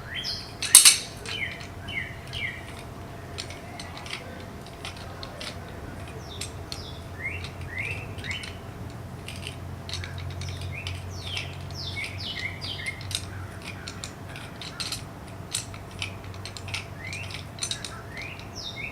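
A jack being wound up by hand, giving light metallic clicks and ticks, with a sharp louder click about a second in. Short, high, falling chirps come in bursts over a steady low hum.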